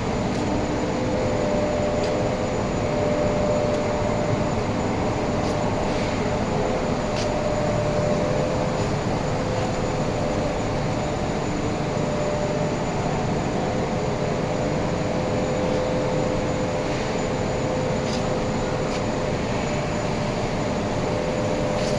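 Workshop machinery running steadily, a constant mechanical noise with a steady hum, and a few faint clicks scattered through it.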